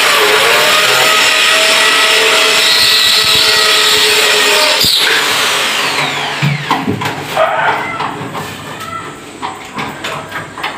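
Electric power drill running at full speed for about five seconds, then released and spinning down with a falling whine. Scattered knocks and clatter follow near the end.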